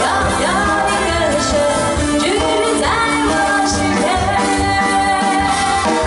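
A woman singing a Chinese song into a microphone, accompanied by a live band.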